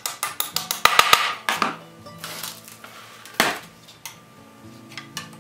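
Instrumental background music with steady stepped notes, with quick percussive clicks up to about a second in and a single sharp knock about three and a half seconds in.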